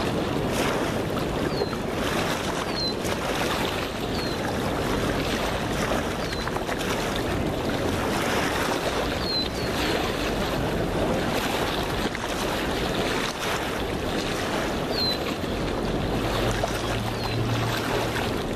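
Rushing river water, a steady noise, with a few short high falling chirps now and then.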